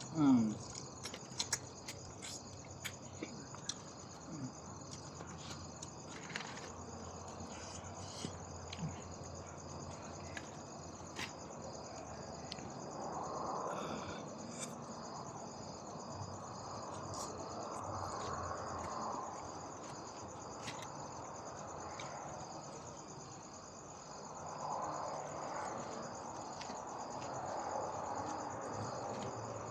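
Crickets chirping in a steady, evenly pulsing high trill. Scattered small clicks and a few short rising sounds come in the first several seconds, and a soft hiss swells and fades a few times later on.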